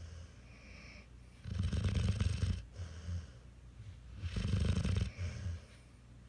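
A sleeping puppy snoring: two low, rattly snores about three seconds apart, each followed by a shorter, softer breath.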